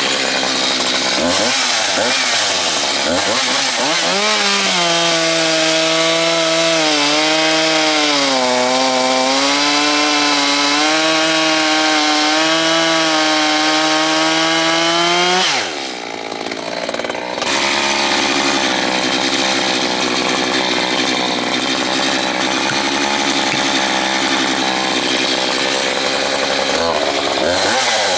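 Echo CS-620P two-stroke chainsaw revving up, then cutting through a log with its engine pitch pulled down and held under load for about ten seconds. About halfway through the engine drops off briefly, then runs at high revs again, revving up and down near the end.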